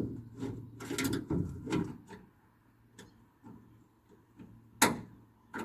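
Screwdriver clicking and knocking against the door lock as the lock's cable is worked out of its catch: a run of small knocks for the first two seconds, then a few separate sharp clicks, the loudest near the end.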